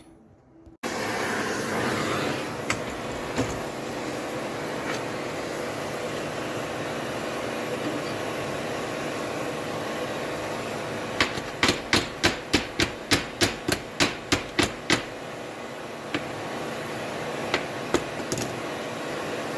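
A quick run of about fifteen hammer blows on steel, about four a second, over a steady rushing noise, as the heated quarter-inch round bar is hammered to bend it into a padlock hasp. A few single knocks follow.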